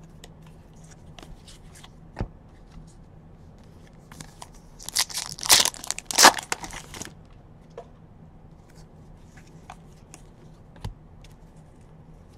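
A foil Donruss baseball card pack being torn open and crinkled: a loud ripping crackle lasting about two seconds near the middle. Faint clicks from handling the cards come before and after it.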